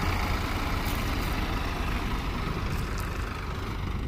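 Farm tractor's diesel engine running steadily with a deep rumble as it pulls a fully loaded trolley past.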